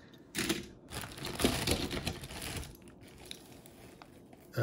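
Die-cast toy cars clicking and clattering against each other as they are handled and set down: a busy run of small irregular clicks and rustling from about half a second in, fading out about three seconds in.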